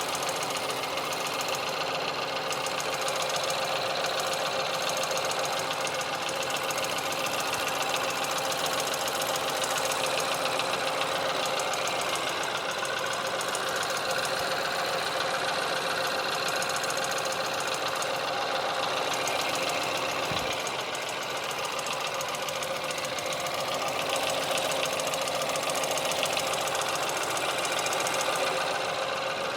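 Ford Focus engine idling with an extraneous rapid ticking, knocking noise running through it, the unexplained noise at idle that the owner is trying to show.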